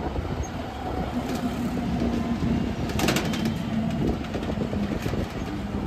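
A motor vehicle running, heard as a steady low rumble with a faint engine tone that comes and goes. There is a short cluster of clicks or rattles about three seconds in.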